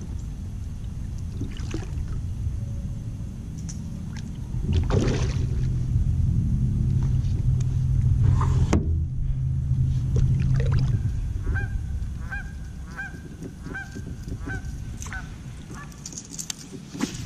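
A low rumble for several seconds, then a bird calling over and over, about two calls a second for some three seconds.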